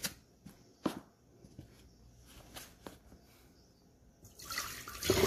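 A few light knocks, then about four seconds in, water starts splashing and pouring loudly as feet are rinsed in a plastic basin.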